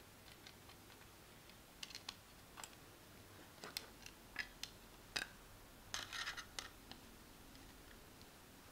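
Faint, scattered clicks, taps and scrapes of small 3D-printed plastic parts and a screwdriver being handled, with a quick flurry of clicks about six seconds in.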